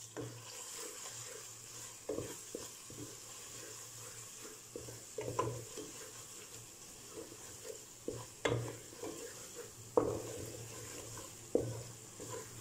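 Wooden spatula stirring and scraping mutton mince around a metal pot, with a steady sizzle of the frying mince underneath. The strokes come irregularly, a few of them louder scrapes against the pot.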